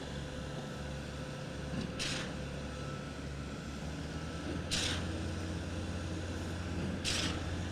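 Concrete pump rig's diesel engine running steadily, with a short burst of hiss four times, about every two and a half seconds.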